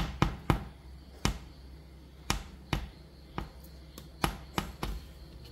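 Metal spoon digging into a dream cake in a clear plastic tub, cracking the set chocolate top layer and knocking against the tub: about ten sharp clicks and taps at uneven intervals.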